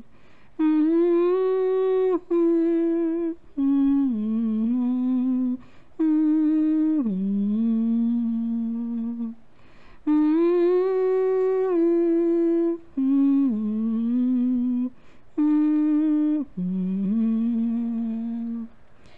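A woman humming a slow melody unaccompanied, in long held notes, the same phrase twice with a short break between.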